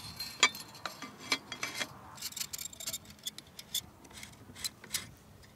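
Light metallic clicks and taps at irregular intervals as a shotgun barrel is worked onto an H&R Pardner Pump's receiver and seated along the magazine tube, metal parts knocking together; the clicks thin out near the end.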